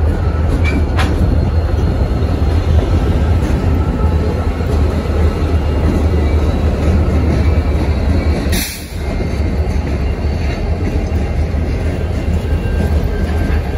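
Several CSX diesel locomotives passing close by, their engines giving a steady low rumble over wheel and rail noise. About two-thirds of the way through there is a short hiss and the sound briefly dips.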